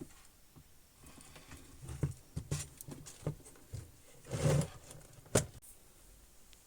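Scattered light clicks and knocks, about five of them, from hands working the TV's wiring and cord connections on the bench.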